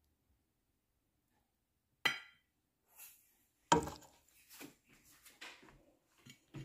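Metal serving spoon clinking against a steel pan and plate while scooping pasta: a sharp ringing clink about two seconds in, a heavier knock about a second and a half later, then softer clatter.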